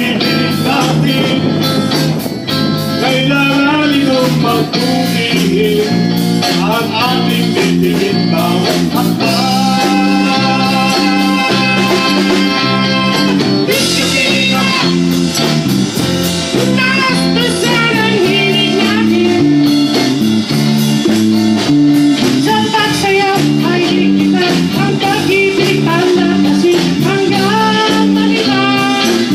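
Live band playing a song: electric guitars, keyboard, a bass line stepping through notes and a steady drum-kit beat, with sung vocals over the top.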